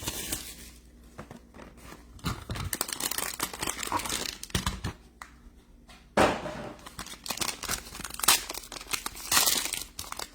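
Wrapping being torn and crinkled as a sealed box of trading cards is opened, in irregular rustling bursts with a sudden louder burst about six seconds in.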